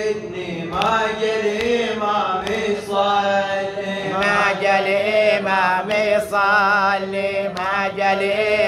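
A radood's solo male voice chanting a Shia latmiya lament, drawing out long ornamented notes with a wavering vibrato. A steady low drone runs beneath.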